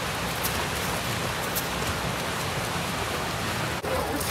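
Steady splashing and rushing of fountain water, an even hiss without a break.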